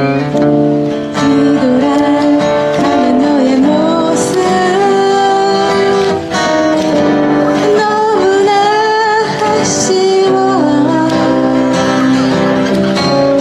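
A busking band playing live: a singer's melody over strummed acoustic guitar.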